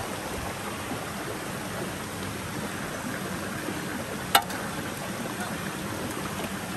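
Steady rush of a flowing river, with a single sharp click about four seconds in.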